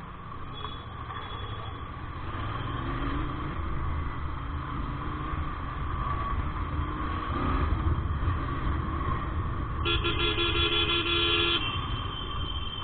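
Steady low rumble of a motorcycle ride through traffic, with a vehicle horn sounding once for nearly two seconds near the end.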